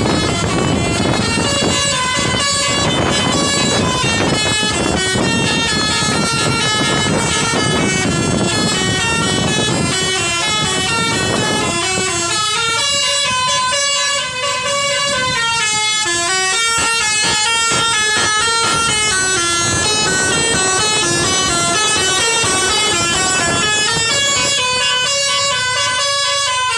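Basuri 'telolet' multi-trumpet air horn on an Indonesian bus playing a tune as a continuous run of stepped horn notes.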